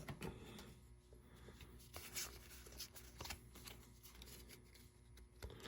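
Faint rustling and soft ticks of Pokémon trading cards being handled and slid against each other, a few scattered times.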